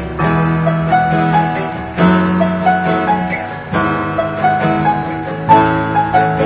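Background music: a piano-led instrumental with new chords struck about every two seconds under a short repeating melody.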